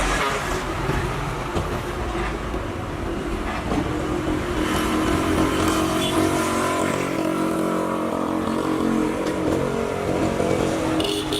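CAT 320 hydraulic excavator's diesel engine running under working load, its pitch rising and changing as it revs through the dig.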